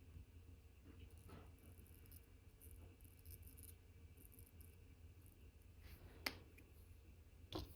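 Quiet workbench with a few small, light metal clicks, the sharpest about six seconds in and another near the end: watchmaker's tweezers and tools touching the parts of a watch movement during assembly.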